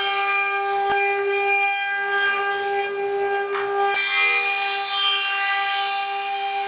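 CNC router spindle running with a steady high whine and overtones while the bit cuts wood, with a rough cutting noise underneath. There are two sharp clicks, about a second in and near four seconds.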